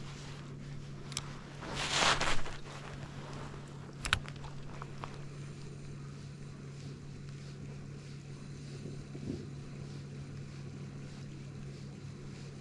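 A light spinning rod being cast: a whooshing swell about two seconds in, then a single sharp click a couple of seconds later, over a low steady hum.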